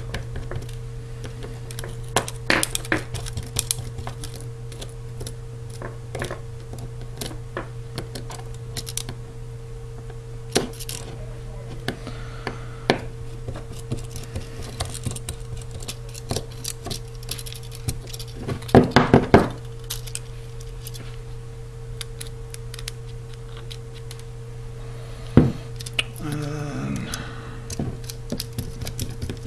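Small sharp metal clicks and taps of a Phillips screwdriver working tiny washered screws out of an iPhone 4S's metal frame, with the loose screws and washers set down on a wooden bench. A cluster of louder clicks comes about two-thirds of the way through, over a steady low hum.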